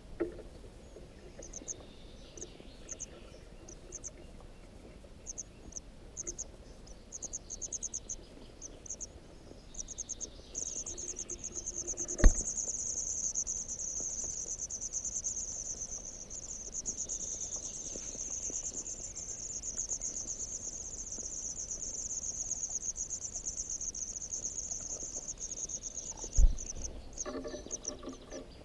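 White wagtail nestlings begging: short bursts of high, rapid ticking calls that swell into a continuous high chatter while a parent is at the nest feeding them, then drop back to bursts near the end. Two sharp knocks, about twelve seconds in and near the end.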